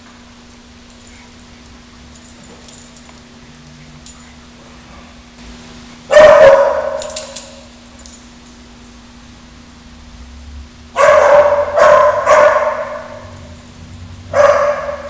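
Dog barking in play: one loud bark about six seconds in, then a quick run of barks in the last four seconds, echoing in a large hard-walled room.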